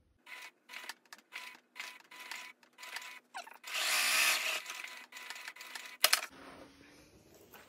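Janome HD9 straight-stitch sewing machine making a few single stitches back and forth through canvas, heard as a short row of separate needle strokes. Then there is a louder rustle of the canvas being drawn out from under the presser foot, and one sharp click near the end.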